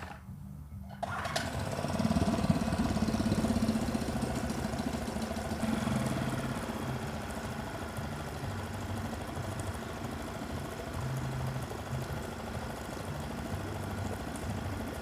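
Suzuki 2.5 hp four-stroke outboard motor catching about a second in after a pull of the starter cord, running up briefly, then settling into steady, fairly quiet running during its break-in.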